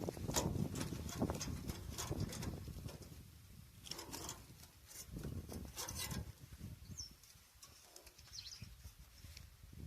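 Irregular clicks, knocks and scraping, as from hand tools and parts being handled. They come thick for about three seconds, then turn sparser and quieter.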